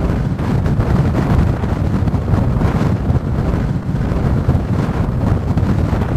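Strong, gusty wind blowing across the microphone: a loud, uneven rush of noise that swells and falls with each gust.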